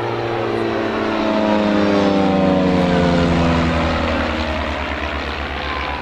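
An aircraft flying past. Its engine tone drops in pitch as it goes by and is loudest two to three seconds in, over a steady low throb.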